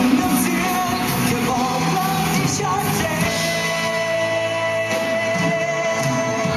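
Live band playing a Thai pop ballad with a singer; about halfway through the singer holds one long note.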